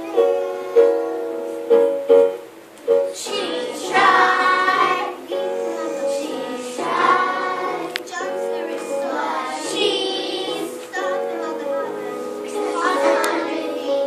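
Ukulele plucked, with a child's voice singing a song over it from about three seconds in.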